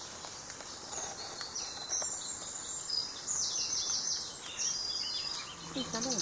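Several songbirds singing in the waterside trees: overlapping high chirps and short trills, busiest around the middle.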